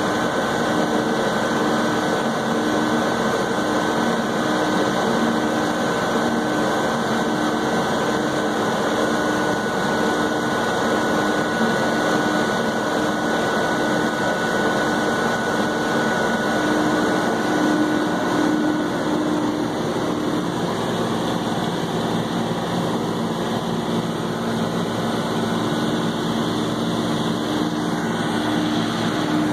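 John Deere 4430 tractor's turbocharged six-cylinder diesel running steadily under load, heard from inside the cab, while its PTO drives a forage harvester chopping corn. A faint steady whine over the engine drone fades out about two-thirds of the way through.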